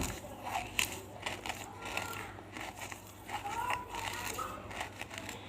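Big pieces of banslochan (tabasheer, the chalky silica from bamboo) being crunched in the mouth: irregular crisp cracks and crumbling.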